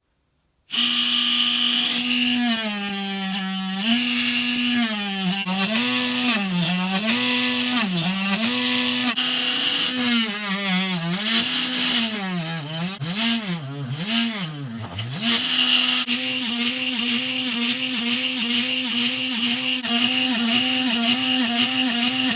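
Small electric motor of a homemade mini drill press running with a high steady whine. Its speed repeatedly sags and picks back up, dipping deepest about fifteen seconds in, then holds steadier toward the end.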